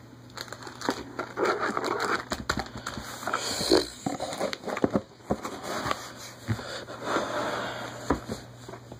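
Handling noise from a phone being moved about: irregular clicks, bumps and rustling on its microphone.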